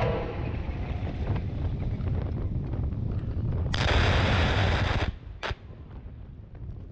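Cluster bomb submunitions detonating across the target area: a rapid string of many small blasts about four seconds in, lasting around a second and a half, followed by one last single blast half a second later. Wind rumbles on the microphone.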